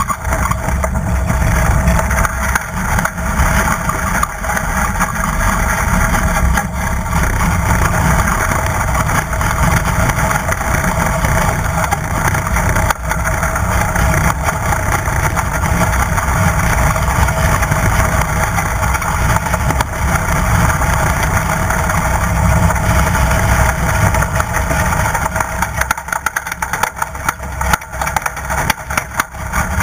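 Strong wind buffeting the deck-mounted camera of a heeled racing sailboat in a broach, with rushing water and spray: a loud, steady rumble and hiss. It eases a little and turns more fluttery near the end.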